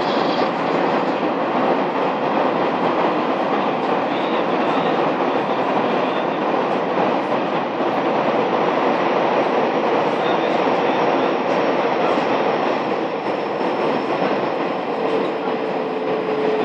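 Taiwan Railways electric multiple unit local train running along the line, a steady loud rumble of wheels on rail. A faint steady tone joins in near the end.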